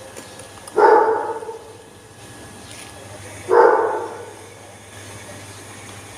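A dog barking twice, about three seconds apart, each bark sudden and fading quickly, over a faint steady low hum.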